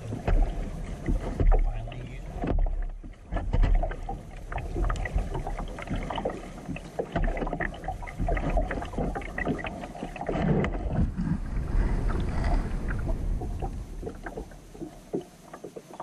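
A plastic kayak being paddled: repeated paddle strokes and drips with small knocks against the hull, over a low rumble, getting quieter near the end.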